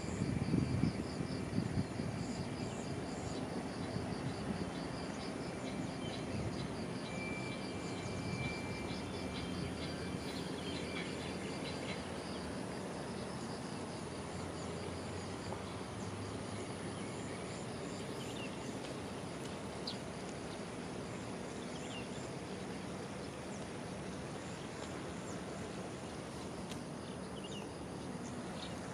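Outdoor ambience: a steady wash of background noise with insects chirping in fast repeated pulses through roughly the first twelve seconds, and a short, steady, high note about seven seconds in.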